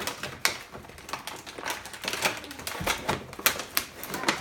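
Plastic toy packaging crackling and clicking as it is handled, a quick irregular run of sharp snaps.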